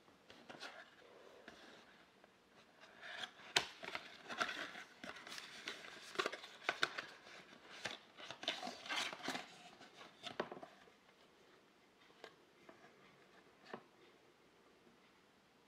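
A cardboard watch box being opened by hand: paper-board flaps and the sliding inner box scrape and rustle, with sharp clicks and taps, busiest for several seconds mid-way. Near the end a few light clicks as the hexagonal metal tin is handled.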